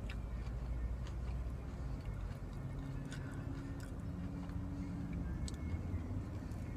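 Faint chewing with a few soft mouth clicks, over a steady low hum.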